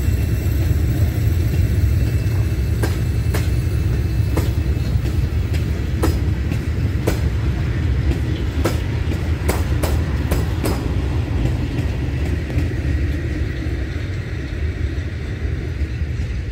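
A slow diesel-hauled train of old passenger coaches rolling past, its wheels clicking irregularly over rail joints and points from about 3 to 11 seconds in, under a steady low rumble that eases slightly toward the end.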